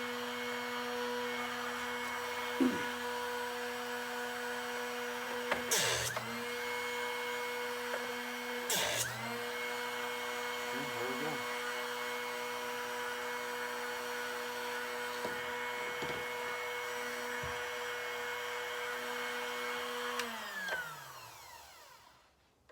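Drill Doctor drill bit sharpener's electric motor running steadily with a whine, with a few short grinding bursts where the motor's pitch dips briefly under load as a bit is ground. Near the end it is switched off and the motor winds down with falling pitch.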